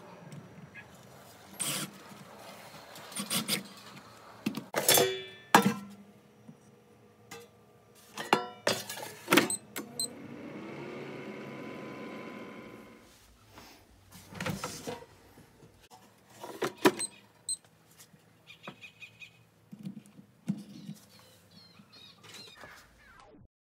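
Workshop handling sounds: a string of sharp knocks, clicks and clinks as metal gearbox parts, tools and wooden blocks are set down and worked on a bench. Near the middle, a small electric motor runs for about three seconds, its pitch rising.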